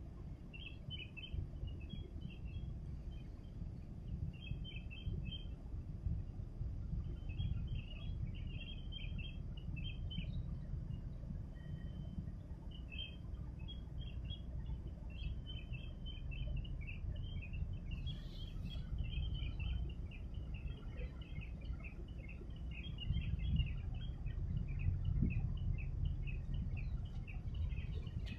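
Small birds chirping in quick clusters of short high notes, sparse at first and nearly continuous through the second half, over a low, uneven rumble.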